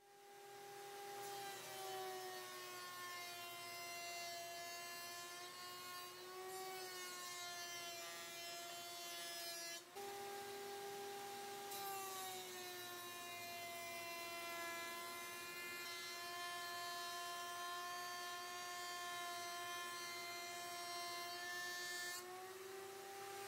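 Router in a benchtop router table running at speed, trimming the rough edge of a pallet-wood board. Its high motor whine sags in pitch as the board is fed past the bit and climbs back as the cut eases near the end. The sound breaks off for a moment about ten seconds in, then the whine resumes.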